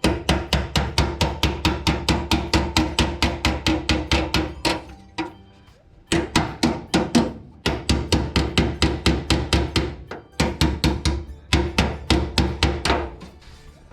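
Hammer beating a steel sheet into shape, in quick runs of blows about five a second with short pauses. The sheet rings with each blow.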